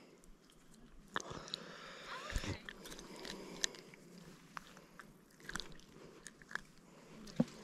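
Faint handling noises, scattered small clicks and rustles, from hands unhooking a smallmouth bass from a lure close to the microphone.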